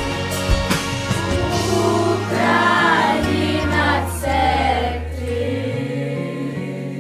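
A children's choir sings a Ukrainian song over a backing track with a steady bass line. The singers hold long, wavering notes in the middle, and the music then fades down toward the end.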